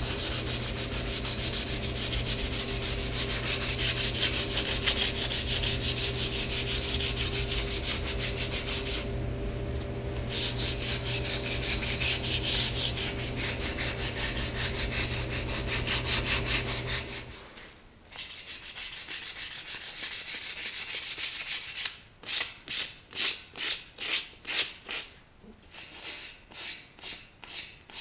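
Sandpaper rubbed by hand over a primed Honda XL175 motorcycle frame, first in quick continuous back-and-forth strokes over a steady motor hum that stops about two-thirds of the way in. After that the strokes come slower and separate, about two or three a second.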